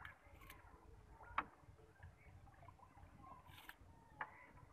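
Near silence: faint outdoor ambience with a low rumble, broken by one sharp click about a second and a half in and a fainter click near the end.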